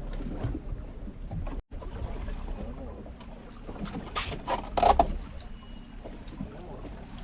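Aluminum fishing boat, a Lund 1875 Impact, rocking on choppy water: steady rumble of waves and wind against the hull. Two loud sharp noises come about four and five seconds in.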